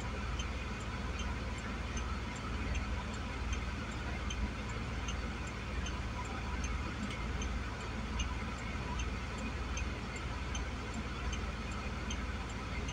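Loaded freight train rolling past with a steady low rumble, under a faint, even ticking about two to three times a second.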